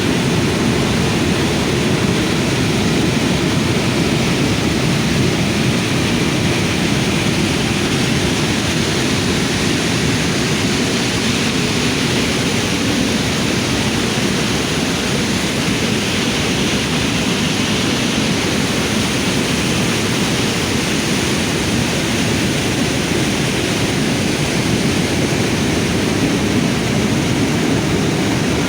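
Floodwater rushing in a loud, steady roar that holds unchanged throughout.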